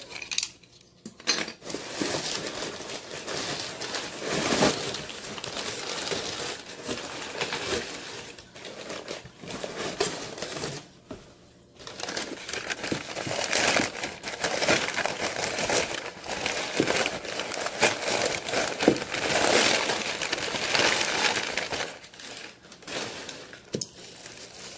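Packaging crinkling and rustling as items are unwrapped by hand, with a few light clinks, stopping briefly about a second in and again about halfway through.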